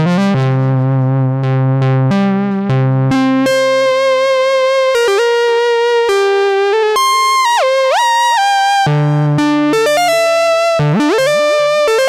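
Kawai S-100F monophonic analog synthesizer playing a single-note line, one note at a time: short low notes with bright attacks at first, then higher held notes that slide up and down in pitch in the second half. A Korg SDD-3000 digital delay adds echoes.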